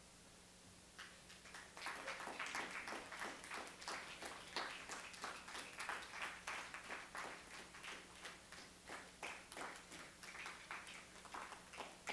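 Small audience applauding: scattered clapping starts about a second in, fills out, then thins toward the end.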